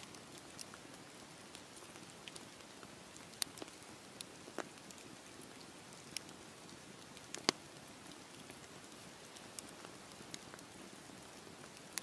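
Wood campfire of split logs burning: a steady soft hiss with scattered sharp crackles and pops, the loudest pop a little past halfway.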